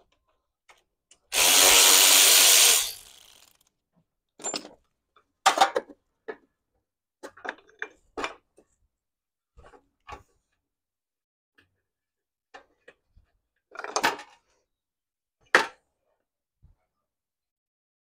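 A handheld power tool runs in one burst of about a second and a half near the start, then tails off. Scattered short metal clinks and knocks follow as the motorcycle's exhaust fittings and rear axle are worked on by hand.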